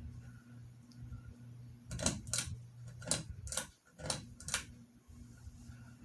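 Harbor Breeze Cheshire ceiling fan motor humming, then about six sharp clicks with a light chain rattle between two and five seconds in as its pull-chain speed switch is worked to move it up to high speed; the hum drops out briefly midway and then returns.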